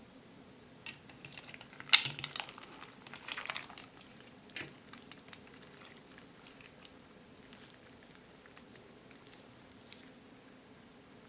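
Slime packed with plastic pearl beads being squished and worked by hand: wet crackling and clicking, loudest about two seconds in, with another cluster a second later. It then thins out to scattered small clicks.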